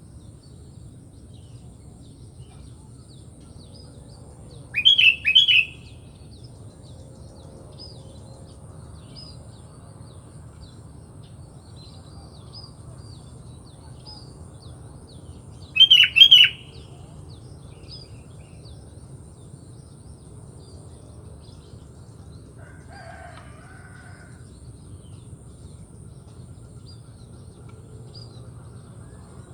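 Sooty-headed bulbul (kutilang) calling: two short bursts of loud chirping notes, about eleven seconds apart, over faint high twittering of small birds.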